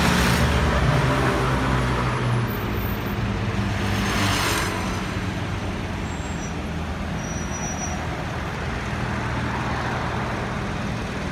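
City street traffic, with cars, vans and trucks driving past close by. A vehicle's low engine hum fills the first two seconds, and another vehicle swishes past about four seconds in over the steady traffic noise.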